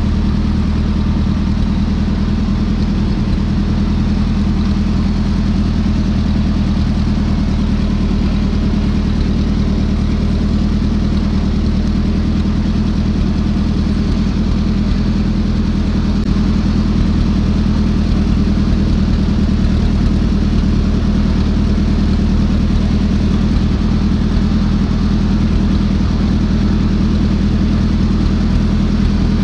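Ford 8N tractor's four-cylinder flathead gasoline engine running steadily while the tractor drives along, on a newly fitted replacement carburetor that is running well without adjustment. It gets a little louder about two-thirds of the way through.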